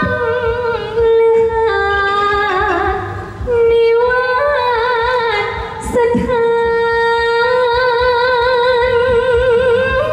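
A woman singing in Thai likay style: long drawn-out notes with strong wavering vibrato and sliding ornaments, in a few phrases with short breaks between them.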